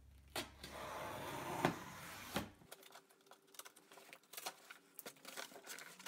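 Tape being slit and torn along the seam of a cardboard shipping box, a ripping rasp lasting about a second and a half. Then the cardboard flaps are pulled open with scattered rustles and knocks.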